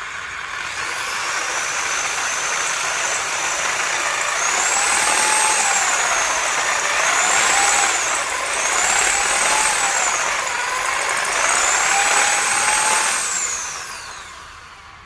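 Electric drill boring a hole into a concrete wall, running steadily; its motor pitch sags and recovers four or five times as the bit is pressed in, then the drill winds down near the end.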